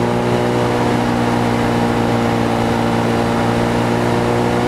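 Mutt Mongrel 250's 250cc single-cylinder engine running at a steady cruising speed while ridden, heard from on the bike over a steady rush of wind noise.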